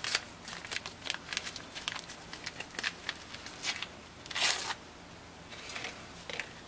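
Small paper packet of jerky cure crinkling and crackling in the hands as it is opened, with a louder rip about four and a half seconds in and a few softer rustles after.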